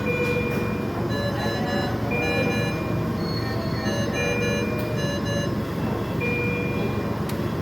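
Medical equipment alarm tones beeping repeatedly, short electronic beeps at several pitches, over a steady rushing hum.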